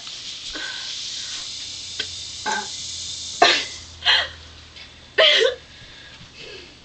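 Fizzing hiss of Pepsi mixed with carbonated candy, fading out after about four seconds. A few short throat sounds break in over it and just after it.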